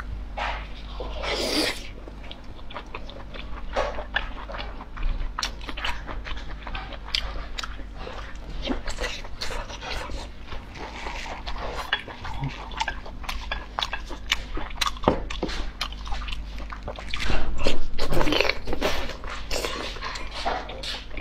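Close-miked mouth sounds of someone eating raw arctic surf clam: chewing, biting and wet smacking, many small clicks, with a louder stretch of chewing about three-quarters of the way through.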